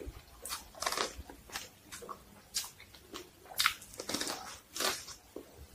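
A person biting kernels off a cob of corn and chewing it close to the microphone: irregular short crunches and mouth noises, several a second, the loudest a little past the middle.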